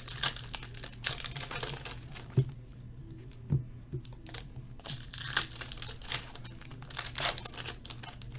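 Trading-card pack wrappers crinkling and tearing as hockey card packs are opened by hand, in several spells, with a couple of soft thumps from handling the box and packs.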